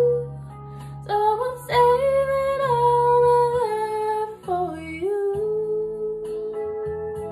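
Music: a woman's voice holding long wordless sung notes that slide gently between pitches, over a soft instrumental backing with guitar.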